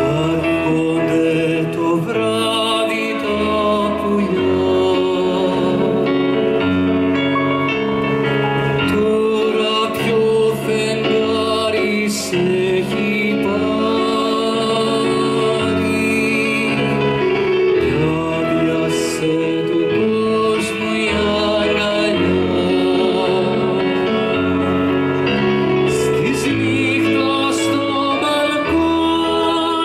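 Live Greek popular song: a male singer with Korg electric keyboard accompaniment, continuous and steady in level; a female singer joins him near the end.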